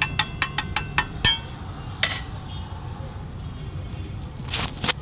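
Steel spatula striking and chopping on a large flat iron tawa: a quick run of ringing metallic clanks, about five a second, for the first second or so. Then a single clank and a scrape near the end, over a steady low rumble.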